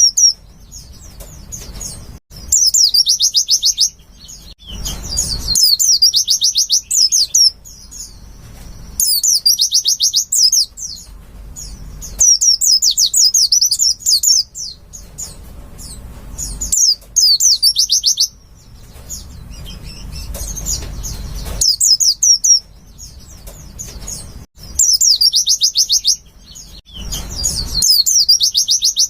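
White-eye (pleci) song: bursts of rapid, high-pitched twittering a second or two long, repeated every few seconds, about eight phrases in all.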